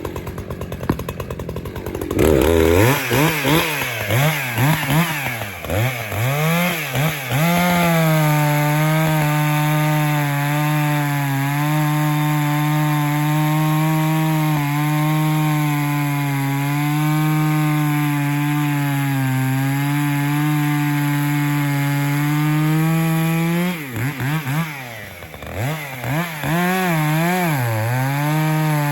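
Echo 620 60cc two-stroke chainsaw idling, then revved in short blips and held at steady full throttle while cutting through a log. Near the end it drops off briefly, is blipped again, and goes back to full throttle in the cut.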